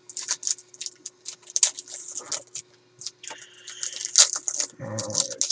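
Wrapper of a trading card pack crinkling in the hands as it is opened, a quick irregular run of sharp crackles.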